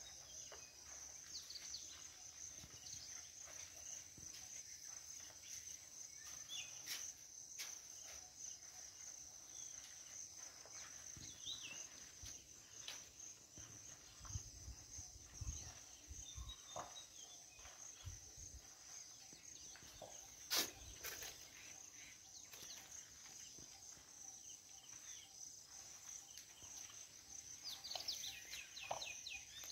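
Steady high-pitched drone of insects, faint, with scattered light clicks and one sharp click about two-thirds of the way through. A few short bird chirps come near the end.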